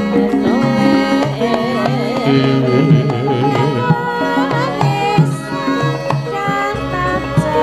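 Javanese gamelan music: metallophones and kendhang hand drumming, with a woman singing a wavering, ornamented vocal line.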